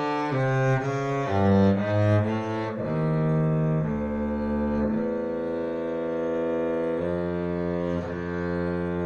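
Double bass played with the bow: a quick run of short notes for the first few seconds, then slower, longer held notes.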